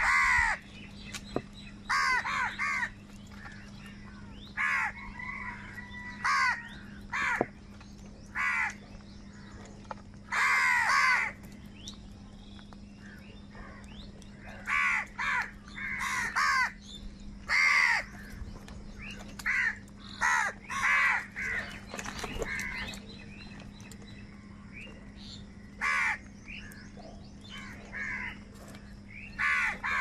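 House crows cawing over and over, harsh calls coming singly and in short runs every second or two, some from several birds close together, over a low steady hum.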